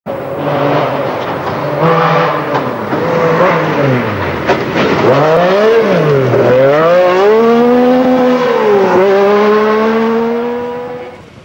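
MG Metro 6R4 rally car engine at full throttle, its note climbing and dropping several times as it accelerates and lifts, then pulling in a long steady climb before fading out near the end.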